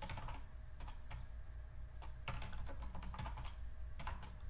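Computer keyboard typing: several quick bursts of key clicks with short pauses between, over a low steady hum.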